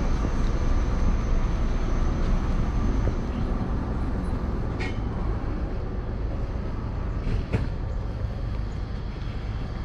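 Steady low hum of a stationary narrow-gauge electric train's onboard equipment, slowly fading. A sharp click comes about two thirds of the way through.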